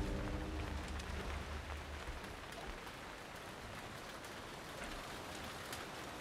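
Steady rain-like hiss with a few faint ticks scattered through it. A low hum under it at the start fades out within the first second or so.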